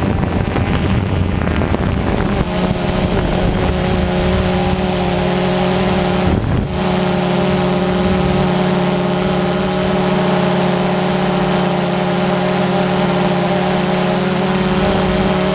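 Multirotor drone's motors and propellers running with a steady, even hum, with a brief dip about six and a half seconds in.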